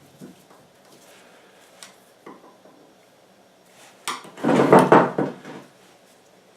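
A few light clicks of small metal parts and tools being handled, then about a second and a half of louder clattering and scraping near the end, as the filler screws go back into a hydraulic bottle jack.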